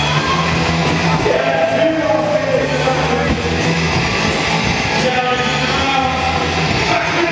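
Rock music with a singing voice over a steady bass line.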